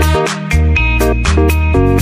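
Background music with a steady beat: short plucked melody notes over a deep bass line.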